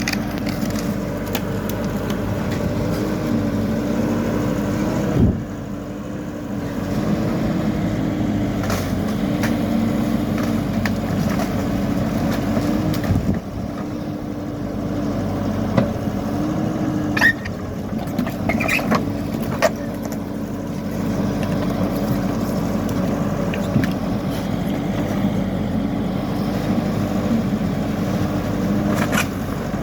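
Hidromek Alpha backhoe loader's diesel engine running steadily, its pitch rising briefly under load several times as it works, with a few sharp knocks scattered through.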